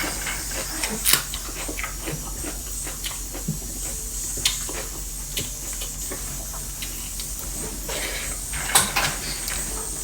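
A person eating a meal of rice, dal and vegetable curry: chewing and small mouth clicks over a steady background hiss, with a few louder clicks about a second in, midway and near the end.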